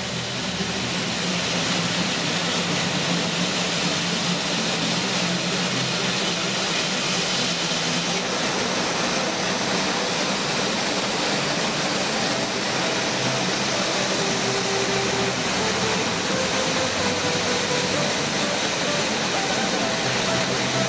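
Airbus A350-941's Rolls-Royce Trent XWB turbofans running at low taxi thrust: a steady jet noise with faint tones in it, rising in over the first second or two.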